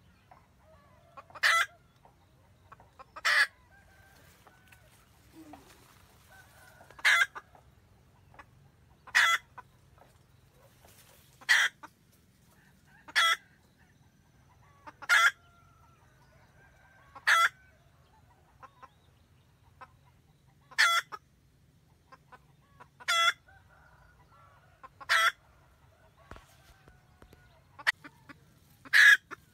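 Red junglefowl hen cackling, giving short sharp clucking calls about every two seconds, a dozen or so in all: the hen's cackle calling the rooster to her.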